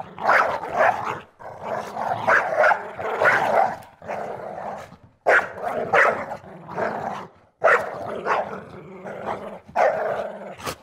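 A dog snarling and growling angrily in a string of harsh bouts, broken by short pauses, with sharp bark-like snaps at the start of several bouts.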